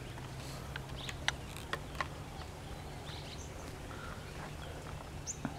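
Scattered light clicks and taps from pliers and wire being worked at an electricity meter box, mostly in the first two seconds, over steady outdoor background noise.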